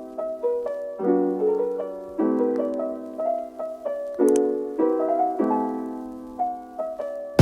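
Piano music: chords and single notes struck and left to fade, a new chord about every second.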